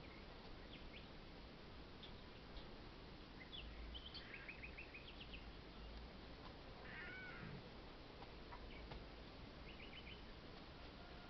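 A domestic cat meows once, faintly, about seven seconds in, over a quiet background with a few short runs of quick high chirps.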